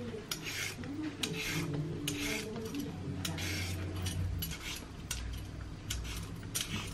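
Y-shaped vegetable peeler scraping the skin off a carrot in repeated short strokes, about one or two a second, with small clicks as the blade catches and lifts off.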